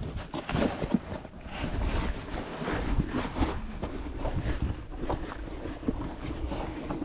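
Scraping and rustling of a person crawling over loose rock and gravel, clothing brushing against stone, with small irregular knocks of shifting stones.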